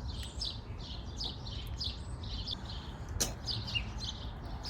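A small bird chirping over and over, about three short high chirps a second, over a low steady rumble. A single sharp click sounds a little past three seconds in.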